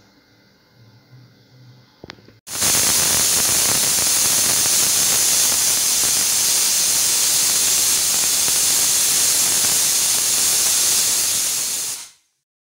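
Pressure cooker whistle: steam venting through the weighted valve of an aluminium pressure cooker on a gas stove. It is a loud, steady hiss that starts suddenly about two and a half seconds in and stops abruptly near the end, the sign that the cooker has come up to pressure.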